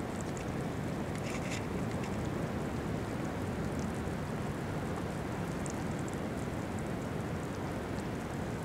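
Steady rush of wind and distant surf on a rocky shore, with a few faint high ticks.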